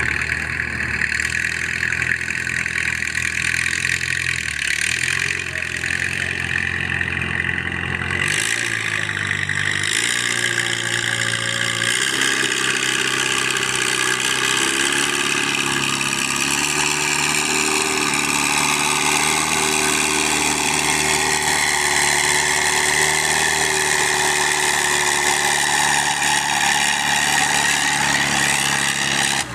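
Antique tractor engine running steadily and loudly, its pitch stepping up and down several times as the revs change.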